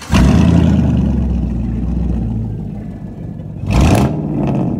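1998 Chevy Silverado's engine firing up with a loud flare, easing down toward idle, then one quick throttle blip a little before four seconds in, falling back to idle.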